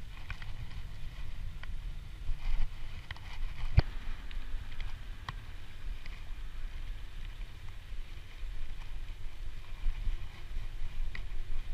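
Wind rumbling on the microphone of a moving bicycle ride, with scattered light clicks and one sharp knock about four seconds in.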